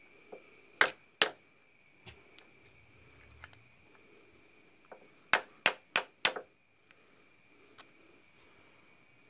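Metal tool striking a motorcycle disc brake caliper's pad retaining pin to drive it out: two sharp metallic taps about a second in, then four quick taps a little over five seconds in.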